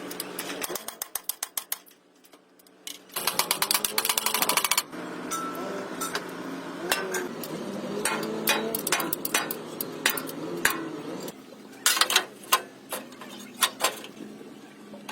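Metal repair work on a truck frame: a fast run of rapid-fire metallic impacts like a pneumatic tool, then several separate hammer knocks near the end, with faint voices in between.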